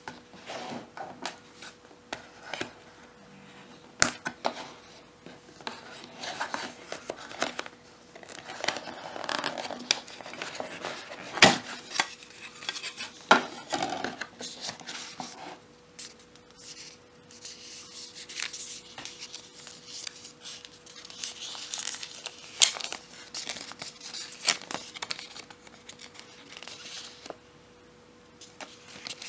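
Cardboard inserts and paper leaflets of a Samsung Galaxy Note 5 retail box being handled: scattered sharp clicks and taps of the cardboard, with stretches of paper rustling and crinkling. A faint steady hum runs underneath.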